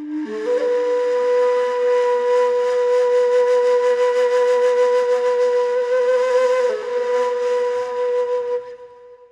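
Solo flute holding one long note, sliding up into it at the start, with a brief dip about seven seconds in, then fading out near the end.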